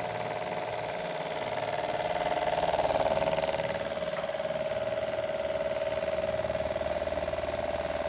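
Max Star 18-inch 70 W pedestal fan running: a steady motor hum with a buzzing midrange tone over airy noise, swelling slightly a couple of seconds in and then holding even.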